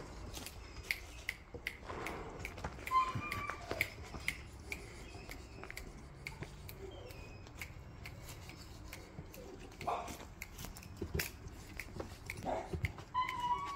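Puppies shifting about in a wire cage on a wooden platform: scattered clicks and taps, with a couple of brief high whimpers, one about three seconds in and one near the end.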